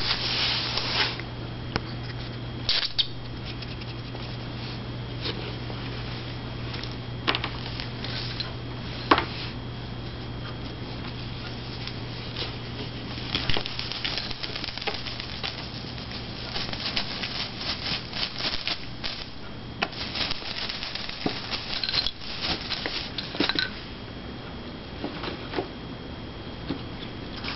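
Kittens playing on and around a cat scratcher on a tile floor: scattered light scratching, tapping and rustling from paws, claws and toys, busier in the second half, over a steady low hum.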